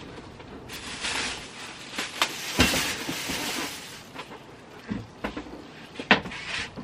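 Household items being shifted and rummaged through by hand: a few seconds of rustling and scraping with several knocks and clunks, the loudest about two and a half seconds in.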